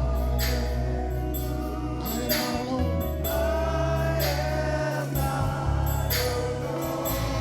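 Gospel choir and congregation singing over a band with organ or keyboard bass, drums and cymbals at a slow steady beat.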